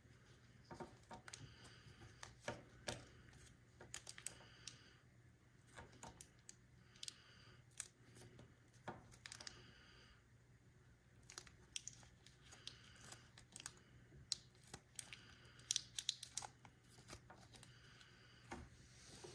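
Faint, irregular clicks and rustles of a plastic action figure being handled and its joints moved by hand, with a low steady hum underneath.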